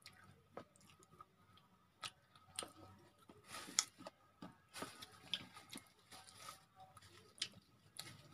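Quiet eating of a biri bora fritter by hand: soft chewing and small scattered clicks as fingers break the fried fritter over a plastic plate, with two short crackly bursts near the middle.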